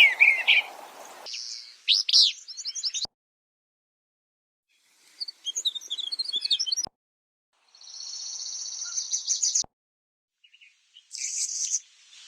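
A string of short recorded bird calls and songs from several different birds, played one after another. Each clip of chirps or trills starts and cuts off abruptly, with gaps of silence between them.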